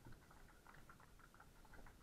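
Faint clip-clop of several horses' hooves walking on a tarmac lane, an uneven patter of clops at several a second.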